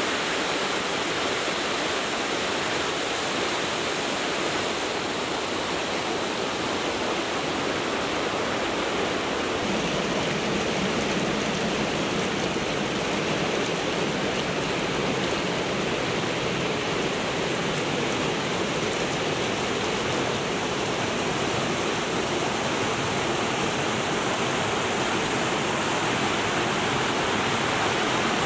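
Forest creek rushing and splashing over rocks in small cascades, a steady full roar of water. About ten seconds in the rush turns slightly deeper and fuller.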